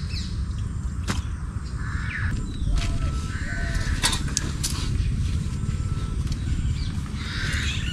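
Crows cawing several times over a steady low rumble, with a few sharp clicks and knocks of camping gear being handled.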